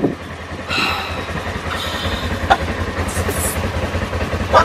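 Side-by-side UTV engine running with a steady low, pulsing rumble, with a brief clatter about halfway through and a louder one near the end.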